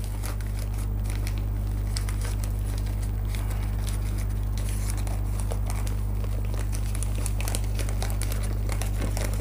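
Newspaper wrapping crinkling and rustling in irregular crackles as a folded paper packet of powdered sugar is unfolded and emptied, over a steady low electrical hum.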